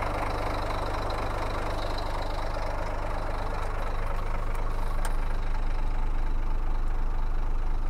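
Scania P340's five-cylinder diesel engine idling steadily, heard from inside the cab, running smoothly.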